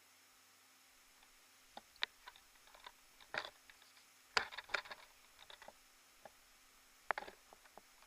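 Faint, scattered clicks and taps, with a cluster about four and a half seconds in and another near the end.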